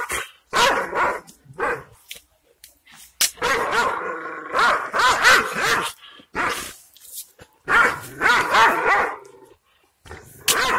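A large Anatolian shepherd guard dog barking aggressively with bared teeth, in bursts of several barks with short pauses between them: a chained guard dog's warning at a stranger.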